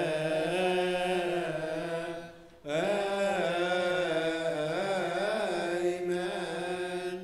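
Male liturgical chanting in Arabic church style: a held, wavering sung line that pauses briefly for breath about two and a half seconds in, then carries on.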